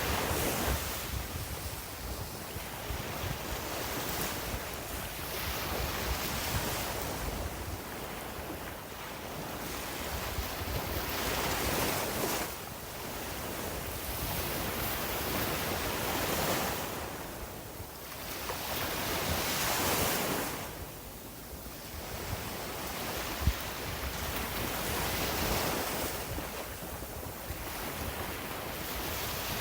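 Sea waves washing onto the beach, the surf swelling and fading over several seconds at a time, with wind rumbling on the microphone and one brief bump of it a little past two thirds of the way through.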